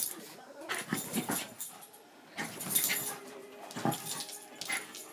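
Small dogs playing: excited dog whimpers mixed with irregular rustling bursts as one dog digs and noses into a duvet.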